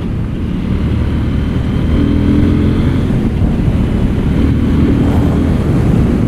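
KTM 790 Duke's 799 cc parallel-twin engine running steadily through its stock exhaust while riding.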